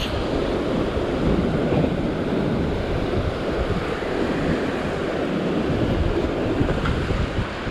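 Ocean surf washing and churning over rock ledges, with wind buffeting the microphone in a steady low rumble.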